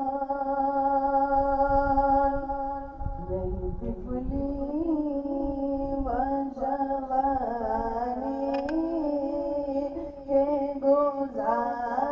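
A man's voice chanting unaccompanied through a PA system. It holds long steady notes at first, then moves into wavering, ornamented melodic phrases.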